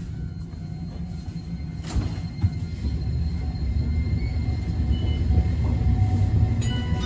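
Keifuku Mobo 2001 railcar running, heard from inside the car: a low rumble of wheels and running gear that grows louder from about three seconds in, with faint steady whine tones from its Toyo Denki IGBT VVVF traction equipment. Two short knocks sound about two seconds in.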